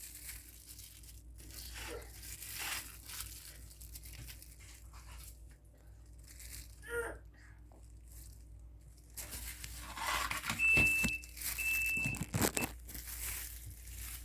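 Kitchen handling noises: rustling and crinkling, then louder knocks, with two short electronic beeps from an appliance about a second apart near the end.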